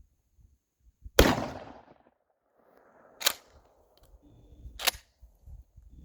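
A pump-action shotgun fires once about a second in, the report dying away over most of a second. Two shorter, sharp snaps follow about a second and a half apart.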